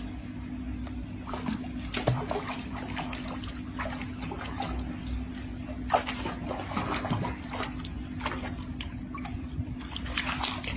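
Water splashing and sloshing in small irregular bursts as a dog wades through shallow pool water, over a steady low hum.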